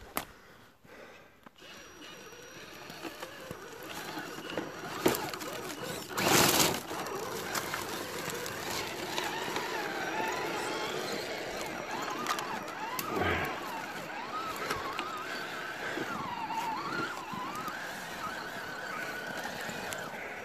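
Traxxas TRX-4 RC crawler with a 4600 kV Sidewinder 3 brushless setup driving over forest leaf litter, the motor whining up and down in pitch with the throttle. A brief loud rustle about six seconds in.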